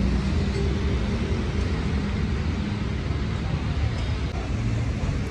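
Steady low rumble of motor vehicles and traffic, with a faint even hum running through it.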